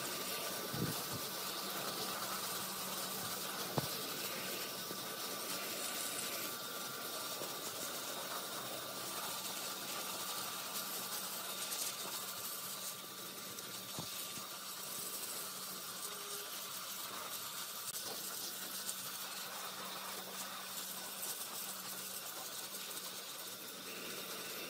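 Pressure washer spraying a jet of water onto an old tree stump: a steady hiss of spray with the even hum of the washer's pump underneath, and a few brief clicks.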